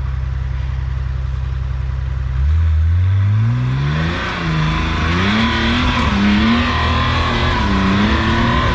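BMW-engined Nissan Patrol GR Y60 running at low revs, then revved hard about two and a half seconds in, the engine note rising and falling again and again as the 4x4 claws up a steep rutted slope under heavy load.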